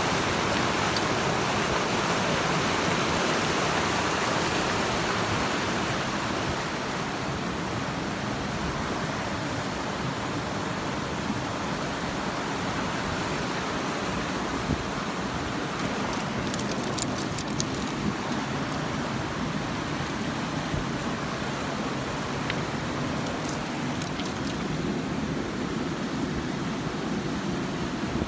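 Steady rush of a fast river running over rocks, a little louder in the first few seconds. A few light clicks come through partway in and again later.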